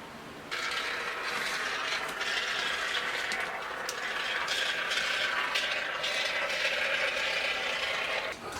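Expanding spray-foam insulation being dispensed: a sputtering, crackly hiss that starts about half a second in and keeps going until just before the end.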